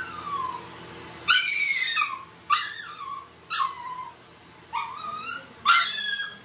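Shih Tzu puppy crying: five high-pitched cries, each falling in pitch, coming about once a second from about a second in. The crying comes from a fearful puppy who resists being handled for grooming.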